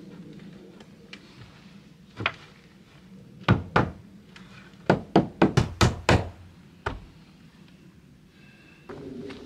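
Sharp knocks on a wooden board being fixed to a timber wall. There is one knock, then two more, then a quick run of about seven, and a last one near the end.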